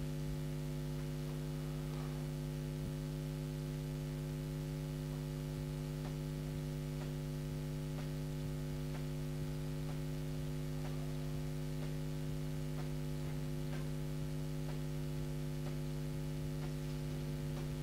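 Steady electrical mains hum, a low buzz with its overtones, unchanging throughout.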